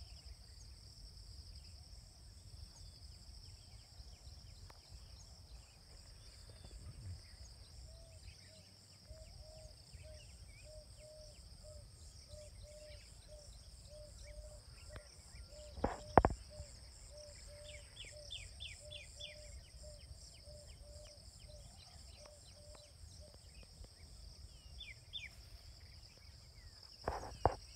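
Steady high-pitched drone of insects. Through the middle a low animal call is repeated about twice a second, with a few short chirps. Two sharp knocks, about halfway and near the end, are the loudest sounds.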